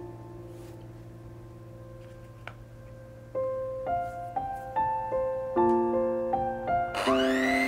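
Gentle background piano music: a held chord fades away, then a run of soft notes resumes after about three seconds. Near the end an electric hand mixer starts whipping chocolate cream, its motor whine rising in pitch as it spins up.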